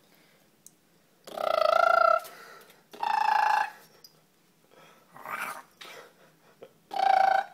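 Pomeranian dog giving three loud, high-pitched, drawn-out whines of under a second each, with a fainter one between the second and third.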